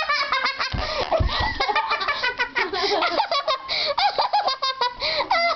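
Young girls laughing hard in rapid, high-pitched giggles, with a few low thumps about a second in.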